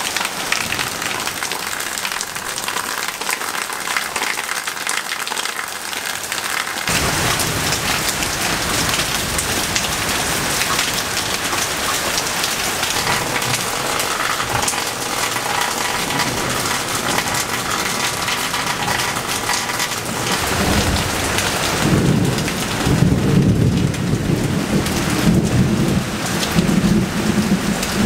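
Heavy thunderstorm rain falling steadily on leaves and grass. About twenty seconds in, a long low rumble of thunder rolls in and makes it louder.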